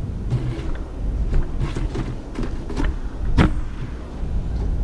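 Hard-drive tray sliding into a Synology DS416 NAS drive bay, with plastic rubbing and several light knocks. The loudest is a sharp knock about three and a half seconds in as the tray is pushed home.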